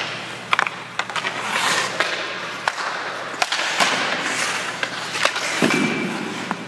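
Ice-hockey goalie's skate blades scraping and carving on the ice as he shuffles across the crease, with several sharp clicks and knocks of stick and gear. Near the end comes a heavier thud as his pads drop onto the ice into a butterfly.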